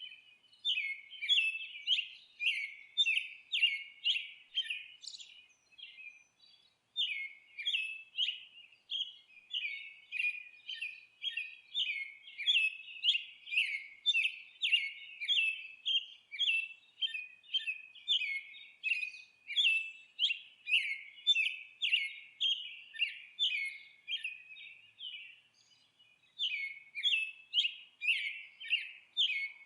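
Songbird chirping and twittering in quick, repeated high notes, about two to three a second, with two short pauses.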